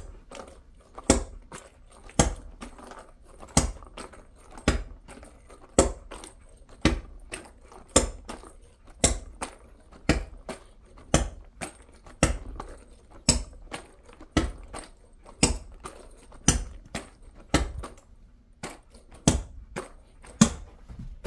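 A small rubber toy ball bounced on the floor over and over, a sharp knock about once a second in a steady rhythm.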